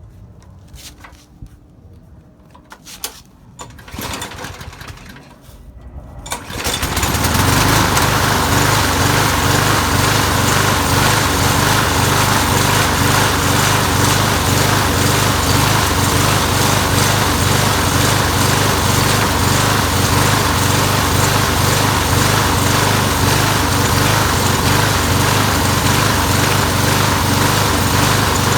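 A few knocks and rattles, then about six seconds in the Briggs & Stratton lawn mower engine starts and keeps running steadily, surging slightly. It now stays running because the plugged fuel holes in the carburettor's float-bowl bolt have been cleaned out. Before the fix it starved of fuel and stalled.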